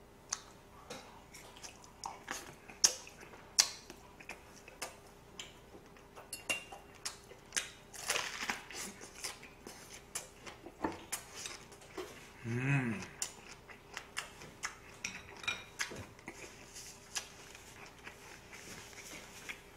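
Close-miked eating sounds: chewing on grilled pork belly and raw onion, with many sharp clicks of chopsticks against bowls and plates. There is a short hummed voice sound about halfway through.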